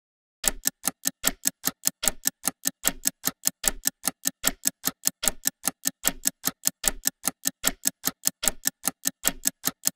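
Fast, even ticking, about five ticks a second, with a low thud under some of the ticks; it starts suddenly and cuts off suddenly near the end.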